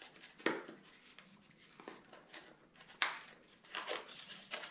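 Hands opening the packaging of a small hand-squeeze flashlight: scattered rustles and clicks, the loudest about three seconds in.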